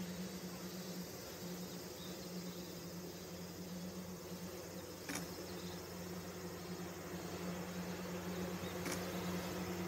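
Insects buzzing and chirping steadily, over a low steady hum that grows slightly louder; two faint clicks about five and nine seconds in.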